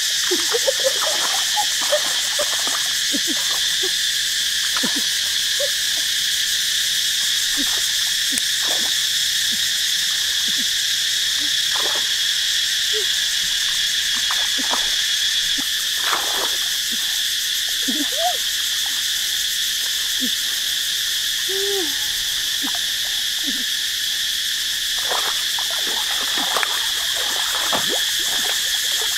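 Steady chorus of insects, with scattered short frog calls throughout.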